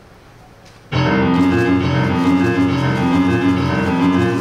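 Piano accompaniment of a musical number enters suddenly about a second in, after faint room noise, and plays a repeating figure in the low and middle register.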